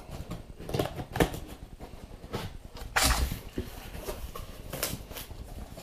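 A cardboard product box being opened by hand: a string of irregular scrapes, rustles and light knocks of cardboard, the loudest about three seconds in.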